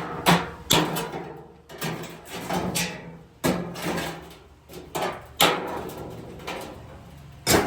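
Sharp metal clanks from sheet steel being worked, about six loud strikes at uneven intervals, each with a short ring, over a faint steady hum.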